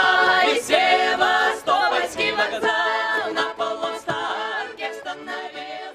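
Unaccompanied group of voices singing a Russian folk song, fading out gradually toward the end.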